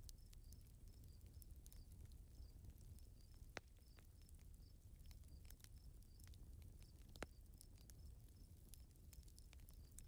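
Faint nature-sounds ambience: short high chirps repeating two or three times a second over a low rumble, with scattered faint ticks and two sharper clicks about three and a half seconds apart.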